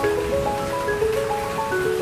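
Calm background music of slow, held notes, a new note about every half second, over the steady hiss of heavy rain.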